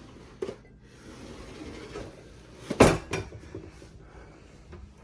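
A cabinet pull-out drawer being handled: a faint click near the start, then one sharp knock as it shuts a little under three seconds in, with a smaller knock just after.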